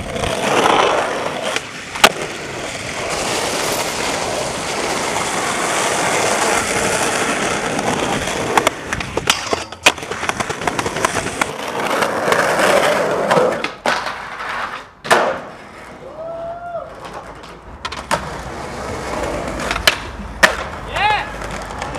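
Skateboards rolling on asphalt and concrete, with the scraping of trucks grinding along a metal handrail and a ledge. Sharp cracks of tail pops and board landings come several times.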